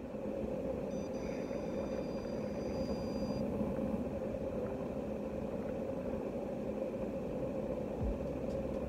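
Steady mechanical hum of a running motor, even throughout, with a faint high steady tone for a couple of seconds about a second in.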